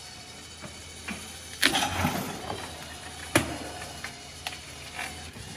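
Steel engine stand on caster wheels being rolled across a trailer's wooden floor under the weight of a diesel engine, giving a rattling clunk about a second and a half in, another sharp clunk about two seconds later and a few lighter knocks, over a low steady hum.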